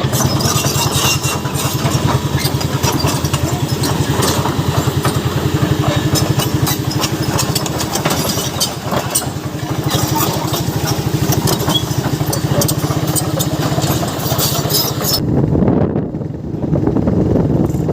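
A vehicle engine running with a steady, rapid low pulsing, with loud rattling and clicking on top; the rattle and hiss fall away about fifteen seconds in.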